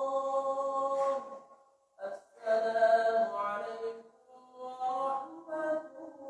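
A man's voice chanting a melodic invocation over the mosque's sound system after the salam that ends a tarawih prayer unit. It comes in three long, held phrases with short breaks, and the middle phrase is the loudest.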